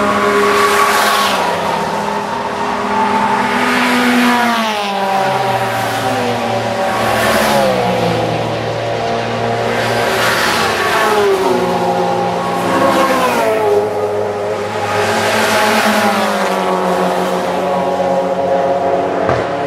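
GT race cars passing one after another at high speed, each engine note dropping in pitch as it goes by, several engines overlapping.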